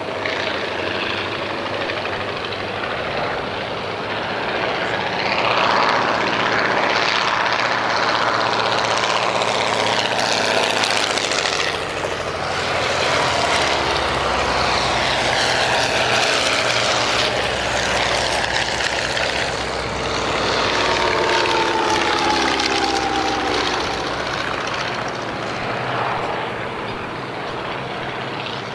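Several Fokker Dr.1 triplanes flying low passes, their piston engines and propellers running together, with the pitch sliding down as each aircraft goes by.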